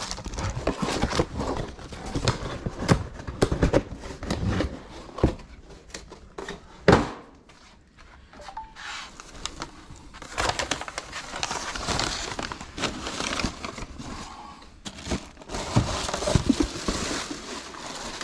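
Rummaging through boxes and stored belongings: crinkling and rustling as items are handled, with knocks and clatter of objects being moved aside and one sharp louder knock about seven seconds in.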